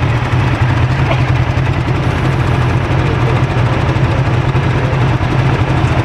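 Polaris RZR side-by-side's engine running steadily, a constant low drone with noise spread over it and no change in pitch.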